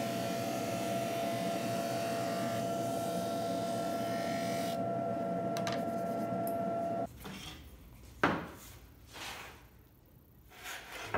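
Wide industrial belt sander running steadily with a walnut slab on its conveyor: a dense, even grinding noise carrying a steady hum and a higher whine. It cuts off abruptly about seven seconds in, followed by a sharp knock and a few short scrapes as a spirit level is laid on the wood slab.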